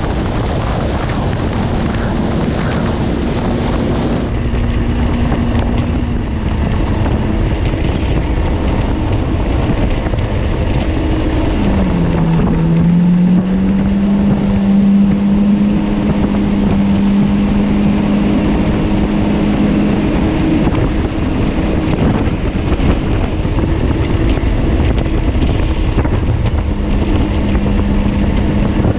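Jet ski engine running at speed, with wind buffeting the microphone and water rushing past. About twelve seconds in the engine note drops briefly, then climbs back and holds steady.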